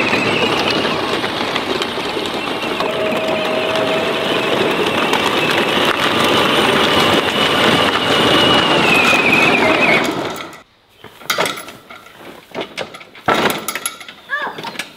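Battery-powered ride-on toy tractors driving over gravel: a steady motor and gear whine over the crunch and rattle of plastic wheels and a towed trailer. It stops suddenly about ten seconds in, followed by scattered light knocks.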